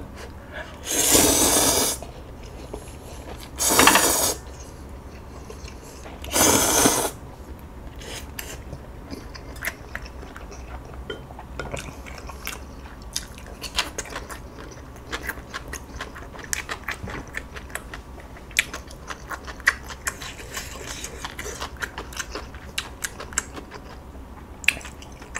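Ramen noodles slurped in three loud bursts within the first seven seconds, followed by chewing with many small scattered clicks and crunches of eating.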